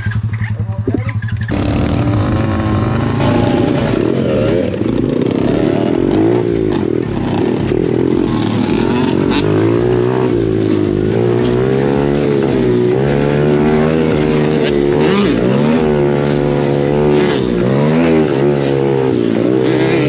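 Small 110cc four-stroke pit bike engine heard up close from the bike. It runs steadily for a moment, then pulls away about a second and a half in, revving up and down repeatedly as the bike rides a dirt trail.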